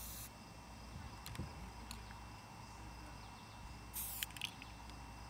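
Aerosol spray paint can hissing in short bursts: one burst ends just after the start and another brief one comes about four seconds in, with a few faint clicks between.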